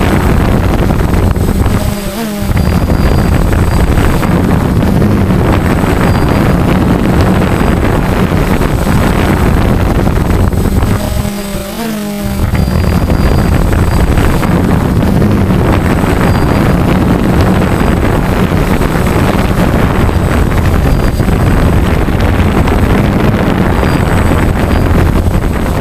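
DJI Phantom quadcopter's motors and propellers buzzing close to its onboard camera's microphone, a steady hum mixed with wind rush. The sound dips briefly twice, about two seconds in and again around twelve seconds.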